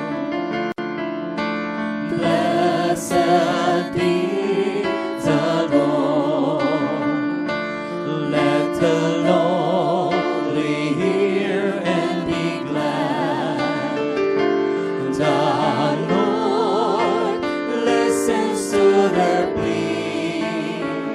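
A choir singing a slow worship song over instrumental accompaniment, the voices held out in long notes with vibrato.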